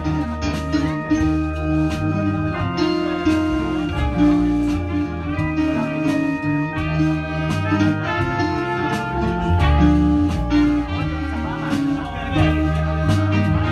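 Live band playing an instrumental passage: trumpet and horn section holding sustained melody notes over electric guitar, bass line and drums.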